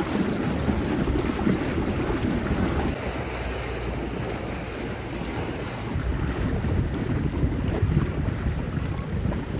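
Wind buffeting the microphone on a motorboat under way, over the rush of water along the hull. The gusting eases a little for a few seconds midway.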